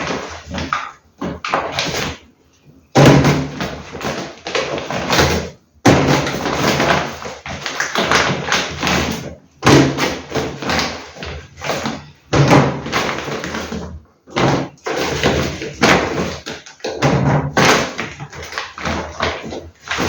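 Plastic grocery bags rustling in bouts, with taps and thuds as produce is handled and set down on a surface.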